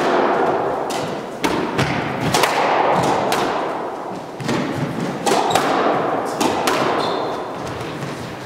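A squash rally: the ball cracks sharply off racquets and the court walls about once a second, each hit trailing a long echo in the enclosed court.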